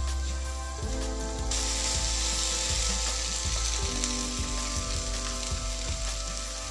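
Shredded cabbage sizzling as it fries in a nonstick pan while a spatula stirs it. The hiss grows louder about a second and a half in.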